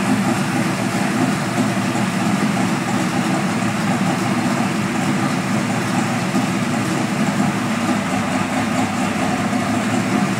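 Twin-turbo 632 cubic-inch big-block Chevrolet V8 in a Chevelle idling steadily, without revving.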